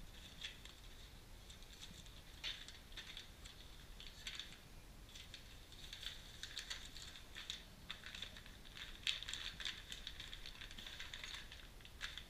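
Clear plastic bags crinkling and rustling in irregular bursts as parts packed in them are handled, with a few light clicks and taps.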